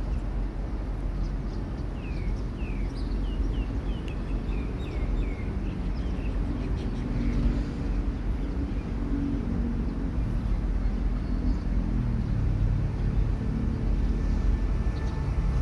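QSY diesel-electric locomotive at the head of a container freight train approaching, its engine a steady low drone that grows heavier in the last few seconds. A bird chirps a run of short falling notes a couple of seconds in.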